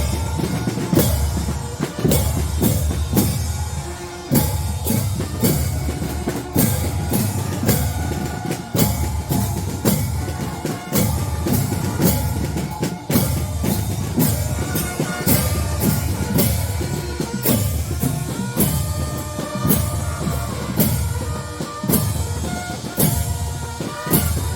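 Fanfare band playing a march, its snare and bass drums beating a steady marching rhythm with held tones over them.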